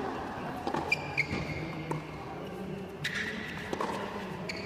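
Tennis rally on a hard court: a string of sharp racket-on-ball hits and ball bounces, several seconds apart at first and then closer together, with a brief squeak about a second in over a low crowd hum.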